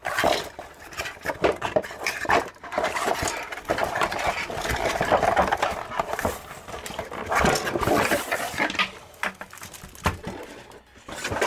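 Clear plastic bag around a keyboard crinkling and rustling as it is handled, with cardboard box parts scraping and knocking as the keyboard is lifted out of its box. Irregular crackling throughout, busiest in the middle and easing off near the end.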